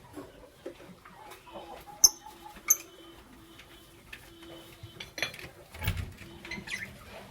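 Lovebirds calling: two short, sharp, very high chirps about two seconds in, with scattered clicks. Heavier knocks and a few low thumps come in the second half.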